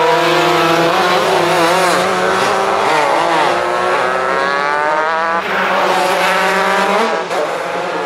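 Superkarts' 250cc two-stroke engines running at high revs on track, several engines overlapping. One engine climbs steadily in pitch through the middle as it accelerates while others fall away in pitch as they pass.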